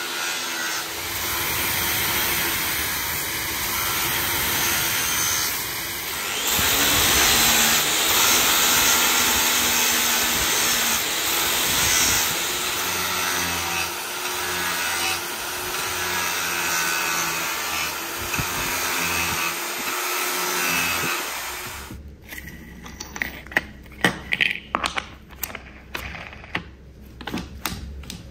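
Handheld angle grinder with an abrasive disc grinding steel, running steadily under load. About 22 seconds in it stops, and a string of sharp clicks and knocks follows.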